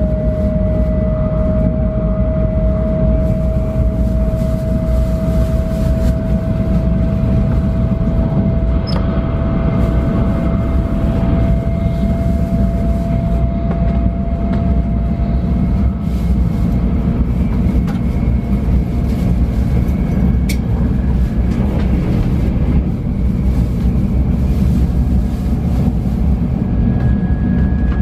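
Shinkansen bullet train running at speed, heard from inside the passenger cabin: a dense, steady low rumble with a thin whine that slowly rises in pitch.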